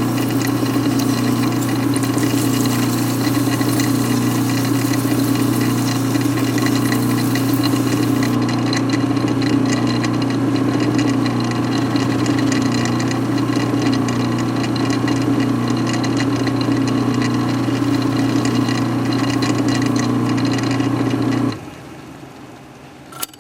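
The electric motor of a machine spinning a piston runs with a steady hum while the piston is sanded with 1500-grit paper. A high hiss thins out about eight seconds in, and the motor cuts off about 21 seconds in.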